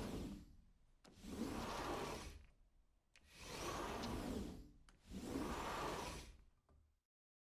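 Door sound effect: a door moving with a noisy swish, repeated four times, each swell rising and fading over about a second, with faint clicks between. It cuts to silence near the end.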